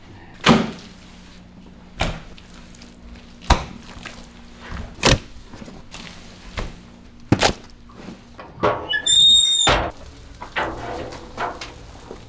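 A series of sharp knocks, about one every second and a half, then a brief high-pitched squeal ending in a heavy thunk, over a faint steady hum.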